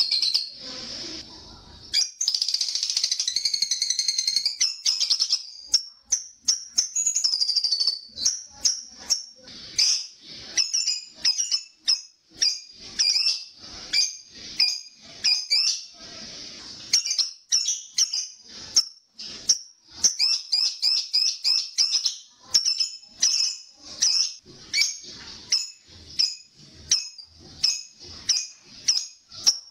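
Lovebird chattering in its long, shrill ngekek song: a dense, continuous trill for the first few seconds, then a run of sharp, rapid chirps at about two a second.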